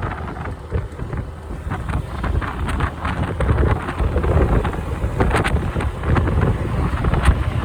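Heavy wind buffeting the microphone of a moving motorcycle, a dense low rumble with gusty surges and occasional crackles, getting a little louder about halfway through.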